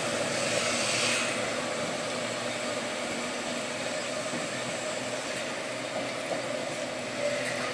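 Manx Electric Railway tunnel car No. 7, an electric tram, rolling slowly over curved track: a steady rumble of wheels on rail and traction motor noise, a little louder for the first second or so.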